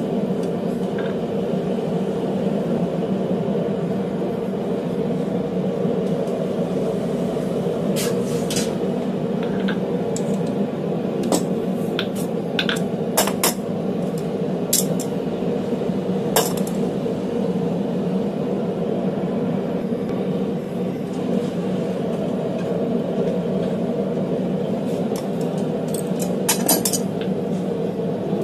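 Scattered sharp metal clinks and taps of steel hammers and tongs against a steel guillotine forging tool, a few at a time with long gaps and a quick cluster near the end, over a steady low rushing noise.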